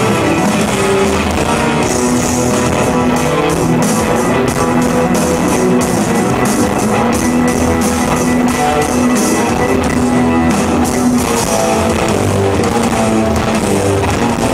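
Live instrumental progressive rock: electric guitar, bass, keyboards and drum kit playing together, with cymbals struck at a steady beat.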